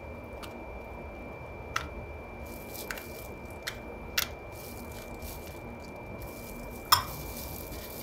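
Metal spoon clicking against a crisp puri shell and the glass bowl of chickpeas as the shell is cracked open and filled: a handful of short sharp clicks, the loudest about seven seconds in. A steady high-pitched tone runs underneath.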